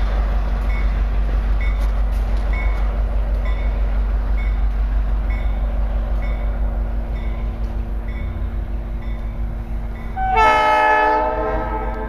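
Norfolk Southern freight train rolling past with a steady rumble and a faint regular click about every two-thirds of a second. About ten and a half seconds in, a diesel locomotive's air horn sounds one short chord blast of about a second, the loudest sound, and then dies away.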